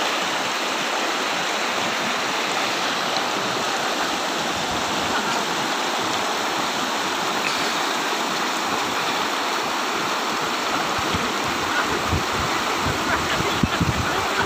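Shallow river rapids rushing steadily over rocks. Near the end, uneven low rumbles join in.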